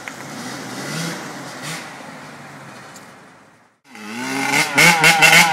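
Jeep Wrangler Rubicon engine running and revving on a muddy trail. The sound cuts out briefly about three and a half seconds in, then returns louder, revving with rising and falling pitch.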